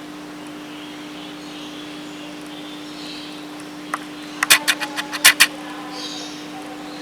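Faint distant birdsong over a steady hum, broken a little past the middle by a quick run of about seven sharp, loud clicks.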